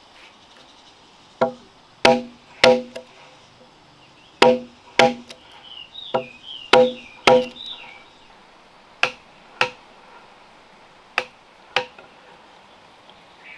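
Chisel being driven into a log to cut a mortise: about a dozen sharp wooden knocks, mostly in pairs, each ringing briefly with a hollow wooden tone. A bird chirps a few times midway.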